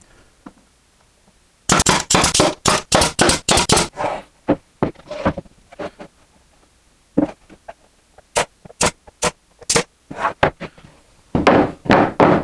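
A series of sharp knocks and clacks of wood on wood: a fast run of about ten near the start, then scattered groups of strikes through the rest.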